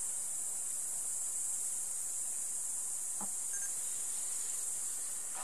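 Steady, high-pitched chorus of crickets, with a short faint knock about three seconds in.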